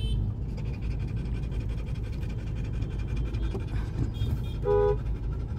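Steady low rumble of car engine and road noise heard inside the car's cabin in slow traffic. A faint high-pitched vehicle horn sounds about four seconds in, then a louder short horn toot just under a second later.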